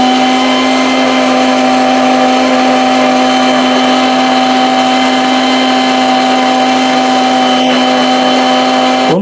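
Electric mixer-grinder running at full speed, blending mango pulp with milk and sugar, with a steady high whine. It is switched off right at the end and its pitch drops as it stops.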